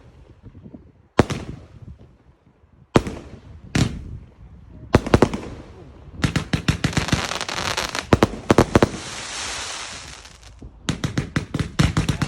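Consumer fireworks going off. Single loud bangs come every second or so, then a rapid string of bangs with a hissing crackle, a short lull, and another fast volley near the end.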